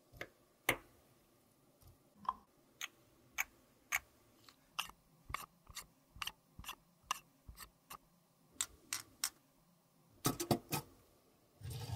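Small hard-plastic clicks and taps, one about every half second, as the dome lid of a plastic cup-shaped cosmetic container is fitted and turned. Near the end comes a quick cluster of louder clicks and a rattle as the containers are set into a small metal wire toy shopping cart.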